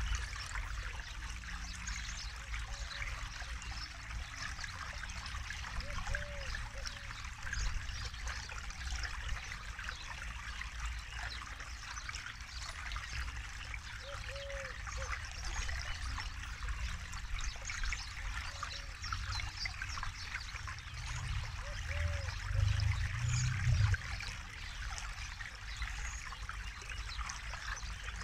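Forest river flowing steadily, a continuous trickling rush of water. A short, low, arched call recurs every several seconds, and a low rumble swells briefly about three quarters of the way through.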